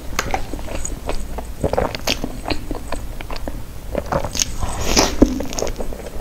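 Close-up mouth sounds of a person eating soft strawberry mille crepe cake with cream: irregular wet smacks and chewing, with a louder run of smacking as a big bite is taken about four seconds in.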